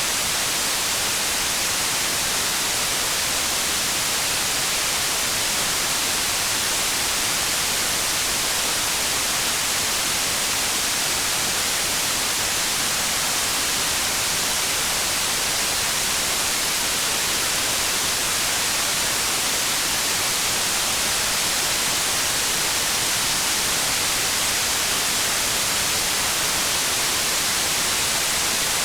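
Steady rain as an even, unchanging hiss, with no separate drops, drips or thunder standing out.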